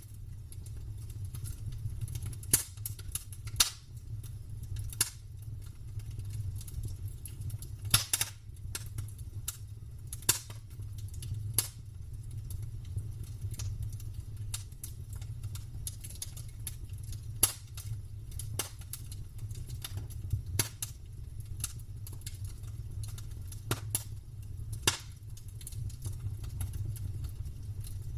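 Campfire crackling: burning wood snapping and popping in irregular sharp cracks, with several louder pops scattered through, over a steady low rumble.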